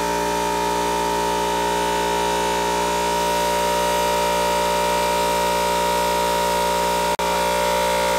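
Electric air compressor running with a steady, unchanging drone. The sound drops out for an instant about seven seconds in.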